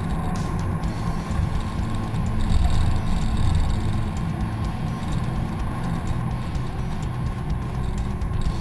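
Hummer 4x4 running as it crawls up a rocky trail: a steady low rumble from the engine and drivetrain.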